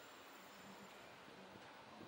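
Faint, steady city street ambience: a low even background hiss of distant street noise.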